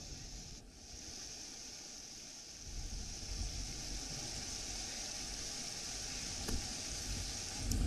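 Steady hiss of rain falling on a flooded street, with a low rumble joining from about three seconds in.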